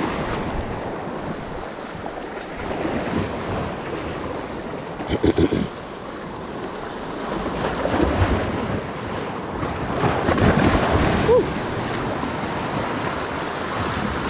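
Small sea waves washing in over shoreline rocks, swelling and easing every few seconds, with wind buffeting the microphone. A short cluster of knocks about five seconds in.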